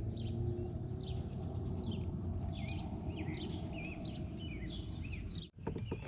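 Small birds chirping over and over, short curling calls, against a steady low background rumble; everything cuts out for a moment near the end.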